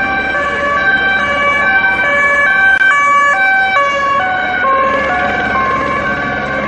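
Emergency vehicle's two-tone siren, stepping back and forth between a high and a low pitch a couple of times a second.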